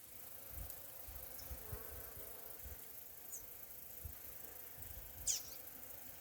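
Bees buzzing around flowers, the hum wavering in pitch as they fly. A short, high, falling bird chirp cuts in about five seconds in, louder than the buzzing, with a couple of fainter chirps before it.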